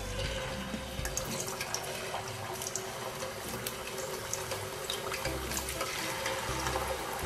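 Small potatoes and other vegetable pieces sizzling as they deep-fry in hot oil in a pan, a steady hiss with many small crackles and pops as more pieces go in.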